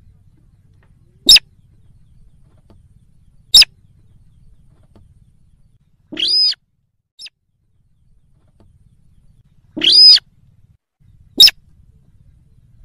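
Slaty-breasted rail calling: very short, sharp high notes a couple of seconds apart, three in all, and twice a longer, harsher call of about half a second in between.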